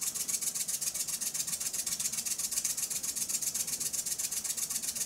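Small single-cylinder model steam engine running on steam from its pot boiler, its exhaust puffing in a rapid, even hissing rhythm.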